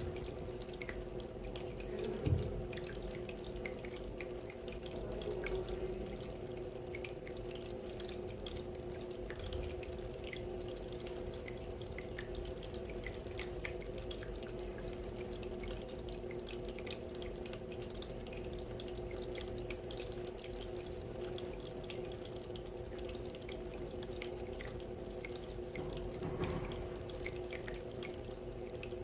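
Small decorative water fountain running: water trickling and dripping steadily into its basin, with a brief thump about two seconds in.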